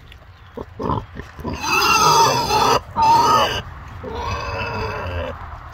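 A sow grunts briefly, then squeals loudly in two long high cries and once more, more quietly, near the end. She is reacting to a penicillin injection given near her ear.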